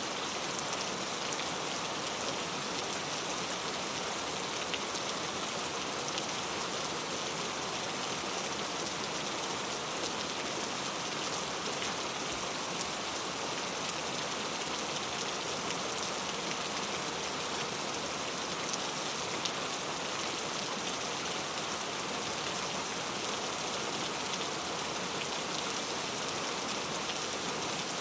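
Heavy rain falling steadily, a dense even hiss of drops with fine individual ticks, with no thunder.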